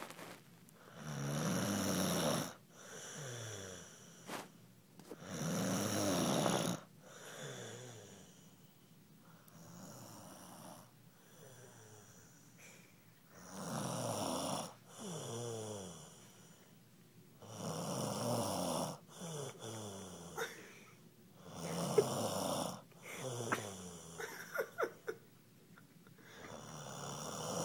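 Loud snoring through a stuffed-up nose, one long pitched snore roughly every three to four seconds, with quieter breaths in between. A few sharp clicks come in the later part.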